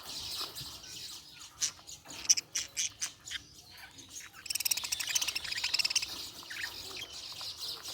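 Budgerigars chirping and chattering: many short, sharp chirps, then a fast buzzy trill about four and a half seconds in that lasts a second or so.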